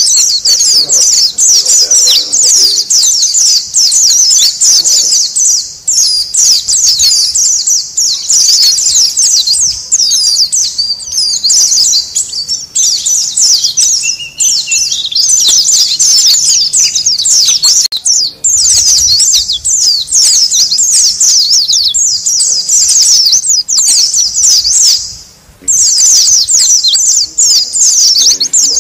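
A noisy flock of white-eyes (pleci) chattering: a dense, rapid stream of high chirps and twitters, broken only by a brief pause near the end. This is the busy colony chatter used as a lure call to draw in wild white-eyes.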